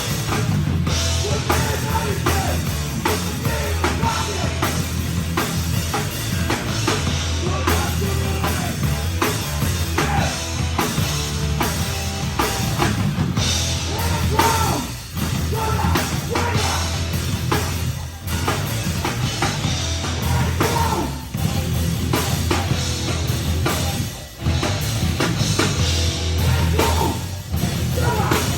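Live rock band playing a loud, heavy song, with a pounding drum kit and bass drum. Several brief, sharp breaks in the music come every few seconds in the second half.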